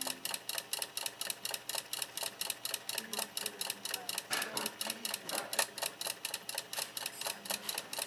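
Small motorised drive of a Faller HO-scale model sawmill running, its plastic gearing and mechanism clicking in an even rhythm of about five clicks a second.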